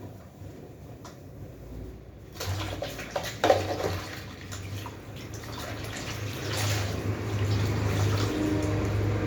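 Water from a kitchen tap running into a sink. It starts suddenly about two and a half seconds in and grows louder later, with a few knocks against the sink.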